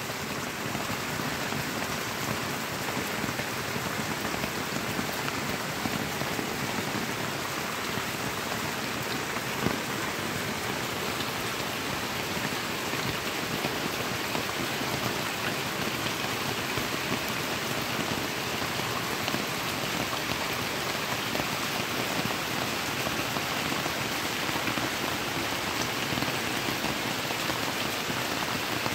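Steady rain falling on puddles and wet ground, an even hiss with one sharper tap about a third of the way in.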